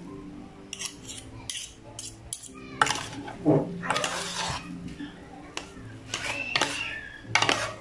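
Two metal forks tossing and mixing a bowl of cooked instant pancit canton noodles, clinking and scraping against the bowl in irregular clatters, the loudest about three seconds in and near the end.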